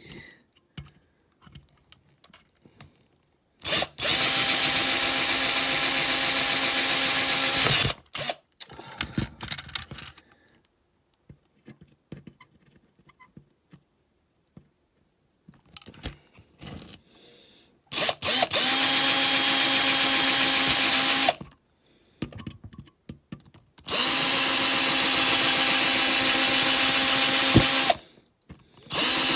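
Small electric drill running in three steady bursts of about four seconds each, with a fourth starting near the end and light handling clicks between. It is working the die-cast metal mounting posts of a model van to take rivets.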